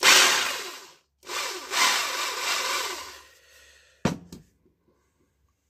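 Hilti rotary hammer drill's electric motor run twice in short spells, each dying away as it spins down, then a sharp click about four seconds in. The tool runs normally now that the loose contact in its power cable has been repaired.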